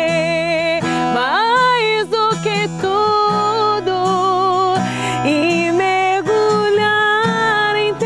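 A woman singing a slow worship song to acoustic guitar, with long held notes that waver in vibrato.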